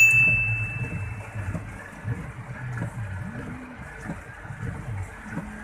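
Rain on a car's windshield and body heard from inside the cabin, a steady wash of water noise over the low hum of the car in traffic. A single sharp high ding rings out right at the start, the loudest sound, fading over about a second.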